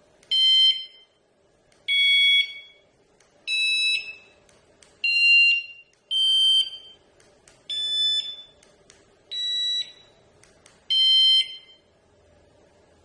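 Camluxy vibration-detector bike alarm sounding its siren: eight loud, short electronic two-tone blasts, about one every second and a half, the pitch changing from blast to blast.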